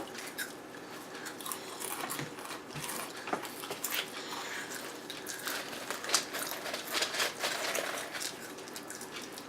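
Chewing and crunching on crunchy spicy snacks: a string of short, crisp crackles.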